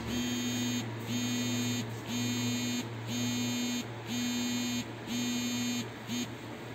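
An electronic buzzer sounds a buzzing tone in regular pulses, about one a second: six long pulses, then a short seventh, and it stops. A steady low hum runs underneath.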